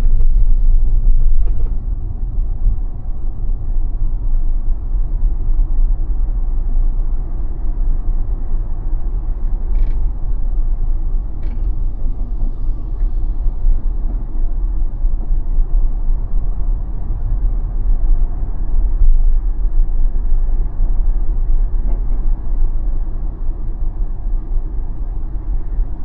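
Steady low road and tyre rumble inside the cabin of a moving Tesla electric car, with no engine note.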